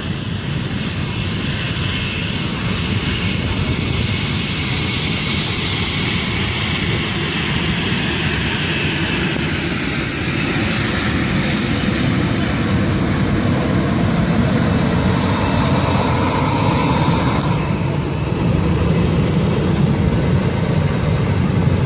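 Airliner jet engines at takeoff thrust, a steady rumble with a whine that falls slowly in pitch as the Airbus A320 rolls down the runway. About three-quarters of the way through, the sound changes to another jet airliner's engines running close by as it taxis.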